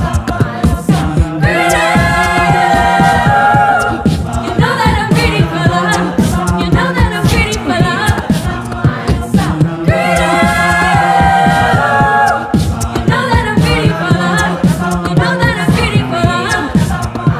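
Mixed-voice a cappella group singing a pop arrangement: a lead voice over backing harmonies, a steady sung bass line and vocal percussion clicks. Twice, about two seconds in and again about ten seconds in, the group holds a long chord.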